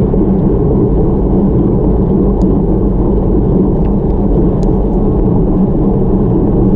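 Steady wind noise rushing over the microphone of an action camera mounted on a road bike riding at about 23 km/h, a loud, even low rush.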